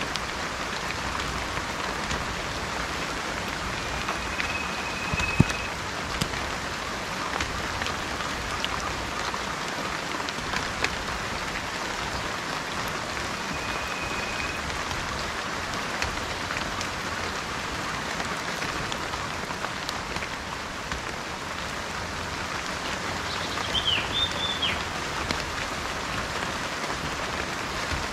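Steady rain falling, with a few short high bird calls over it: a held whistled note about four seconds in, another around the middle, and a quick call near the end.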